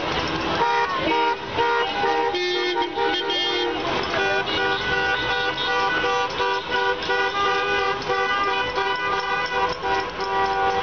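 Several car horns honking at once, overlapping. From about four seconds in they are held almost unbroken.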